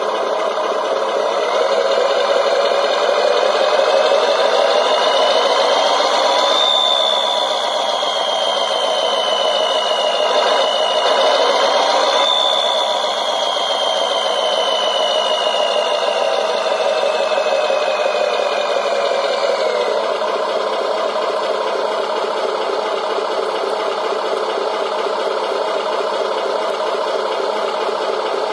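RC engine sound module playing a simulated engine through a small speaker, following the transmitter's throttle: it revs up slowly, eases off, revs a second time, winds back down, and settles into a steady idle about two-thirds of the way through.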